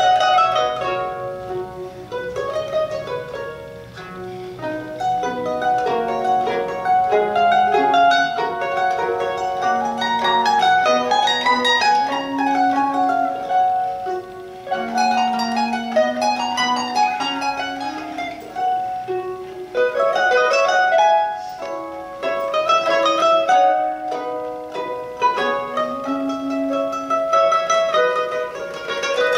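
Duet of two bowl-back mandolins playing a classical-era sonata, two plucked melodic lines interweaving in quick runs and held notes.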